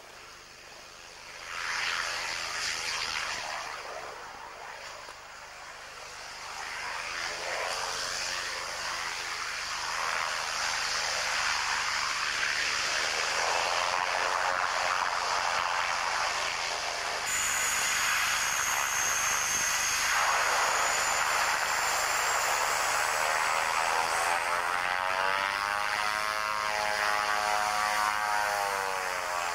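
Twin-engine turboprop aircraft, a de Havilland Canada DHC-6 Twin Otter, running: a propeller drone whose pitch rises and falls as it flies low past, then from about halfway louder and close by, with a thin high turbine whine over the propeller noise.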